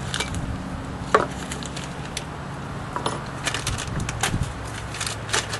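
Scattered light clicks and knocks of hand work on a car cylinder head and its valve parts on a wooden bench, with one sharper knock about a second in and a quick run of clicks near the end.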